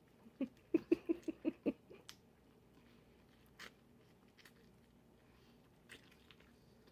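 A man eating a chicken wrap with his mouth full: a quick run of short chewing and mouth noises about half a second to two seconds in, then a few faint clicks.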